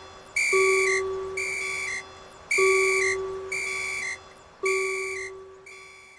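Electronic railroad crossing warning signal in an animation: a high chime tone repeating about once a second, with a lower tone sounding on every second stroke, fading out near the end.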